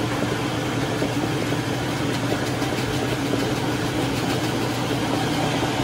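Maytag washing machine running with a steady motor hum and no squeal or squeak, a sign the repair has cured the noise.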